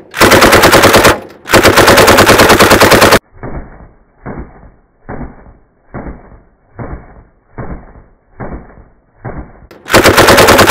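DPM light machine gun (7.62×54R) firing full auto: two long bursts in the first three seconds, then a duller, muffled run of about eight short bursts under a second apart, and a long burst again near the end.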